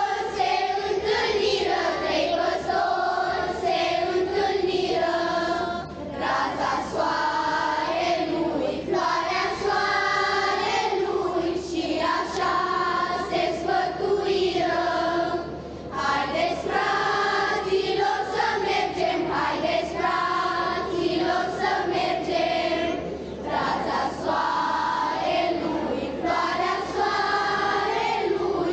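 Children's choir singing a Romanian Christmas carol (colindă), sung in phrases with brief pauses between them.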